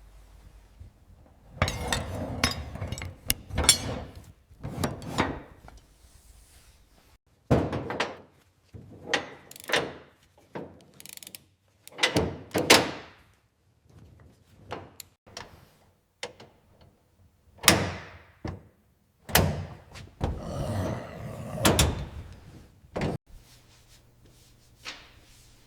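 Hands working on a 1/18 scale model car, fitting and handling small parts: irregular clusters of sharp clicks and knocks with brief rubbing between them, with short quiet gaps.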